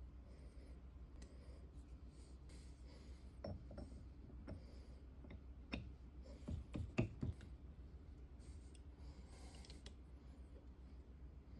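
Light metal clicks and knocks of new steel vise jaws being fitted onto a bench vise, bunched in the middle, over a faint steady hum.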